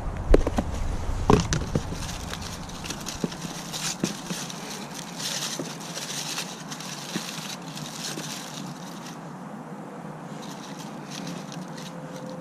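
A few sharp knocks in the first two seconds, then aluminium foil crinkling and rustling as a foil parcel of sprat deadbaits is unwrapped in a plastic tub.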